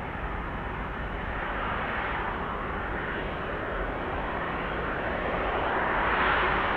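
Airbus A330-300's jet engines running as the airliner rolls along the runway after landing: a steady rush of engine noise that grows louder toward the end as the aircraft comes nearer.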